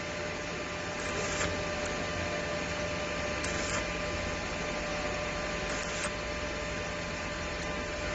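Stick-welding arc from an MMA400 inverter welder burning on a thin stainless-steel tube: a steady hiss with a few short crackles.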